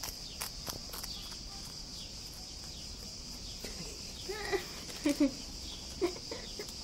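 Pet rabbit chewing a small cookie, with faint crunching clicks in the first second. A steady high-pitched insect drone runs behind it, and a person's voice sounds briefly about four and a half to five seconds in.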